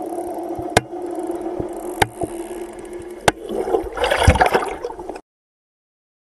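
Underwater ambience: a steady hum with three sharp clicks, then a loud rush of churning water and bubbles as a wave breaks overhead about four seconds in. The sound cuts off abruptly shortly after.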